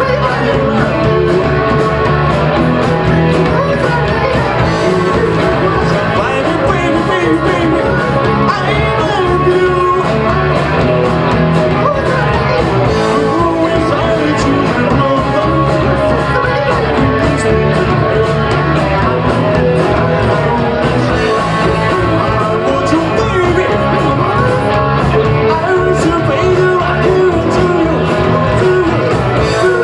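Live rock band playing a song loud: distorted electric guitar, bass and steady drum beats, with a singer's voice over the band.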